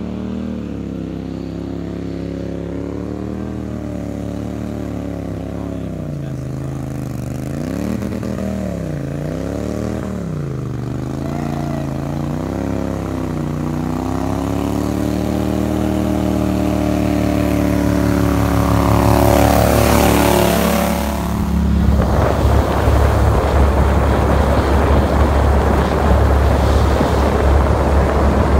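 Pro-Drive 36 hp mud motor on a small marsh boat running and approaching, its engine pitch dipping and recovering several times as the throttle is worked and growing steadily louder, then dropping in pitch. About three-quarters of the way in, this gives way to a rougher, steady boat-motor rumble mixed with wind rush, heard from aboard a moving boat.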